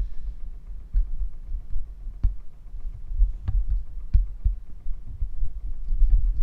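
Low rumble broken by a handful of sharp knocks, about five spread over the few seconds, like things being handled and set down.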